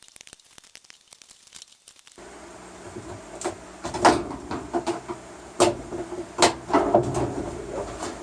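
Plastic tabs on a washing machine's inner plastic piece clicking and snapping as they are popped loose, with knocks and rattles as the piece is worked out. This comes after about two seconds of near silence.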